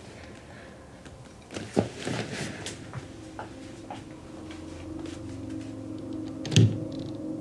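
Scattered small clicks and rustles in a quiet room, with one sharp knock near the end as the loudest sound. A low droning music tone fades in from about five seconds.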